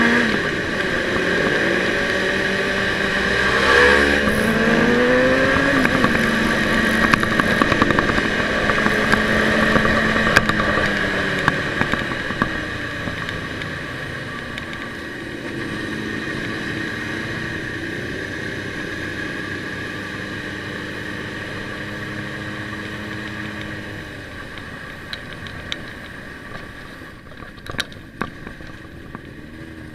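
Ducati motorcycle engine running under way, its pitch rising and falling with the throttle and gear changes, over steady wind noise on the helmet microphone. The engine grows quieter through the second half as the bike eases off toward slower traffic, with a few sharp clicks near the end.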